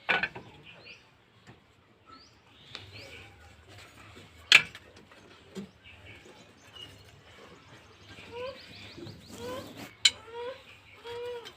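Birds chirping in short, repeated calls, with a couple of sharp knocks.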